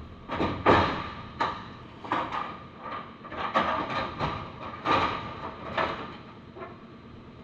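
Aluminium F-150 bedside skin being pulled and peeled off the truck box by hand at the wheel arch: about a dozen irregular scrapes and creaks as the panel flexes and the heated adhesive lets go, the loudest just under a second in.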